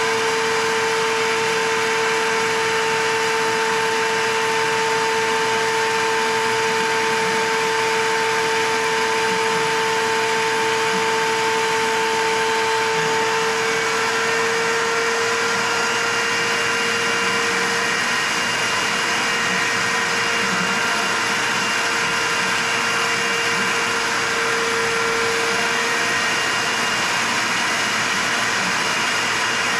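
Shop vacuum running steadily with a constant whine, sucking engine coolant out of a snowmobile's bottom front cooler hose. A higher tone in the whine drops out about halfway through.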